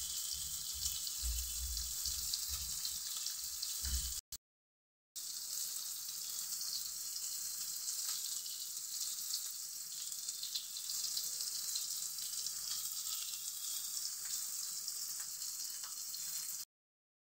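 Steady high hiss, with low rumbling during the first few seconds. It cuts out completely for about a second twice, once about four seconds in and once near the end.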